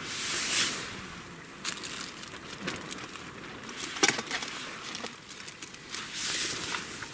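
Thin clear plastic bag rustling and crinkling as a hand handles it, swelling at the start and again near the end, with a couple of short sharp clicks between.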